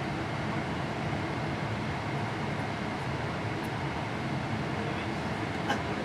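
Boeing 777-300ER cabin noise during descent: the steady rush of airflow and engines heard from an economy window seat, with a faint click near the end.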